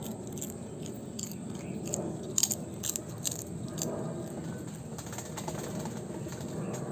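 Close-up eating sounds: chewing and crunching of chicharon (fried pork rind), with a few short, sharp crunches in the middle.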